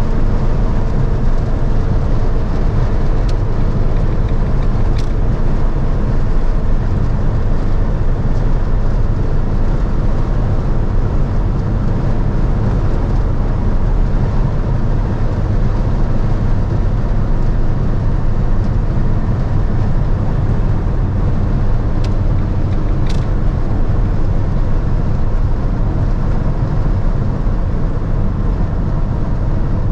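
Cab interior of a 2013 Fiat Ducato 150 Multijet van at about 160 km/h on the motorway: the 2.3-litre four-cylinder turbodiesel drones steadily under a constant rush of wind and tyre noise.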